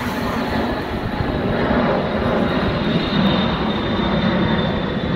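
Large jet airplane flying overhead: a steady, loud rush of jet engine noise with a thin high whine running through it.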